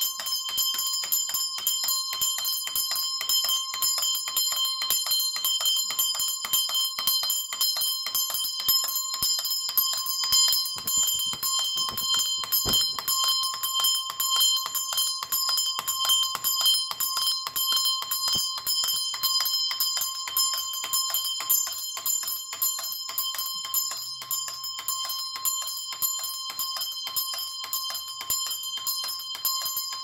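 Early-19th-century English clockwork burglar alarm by John Linwood going off: its spring-driven movement shakes a brass bell so that it is struck rapidly and without pause, a steady, loud ringing. The door it is tied to has been opened, pulling the string that releases the clockwork.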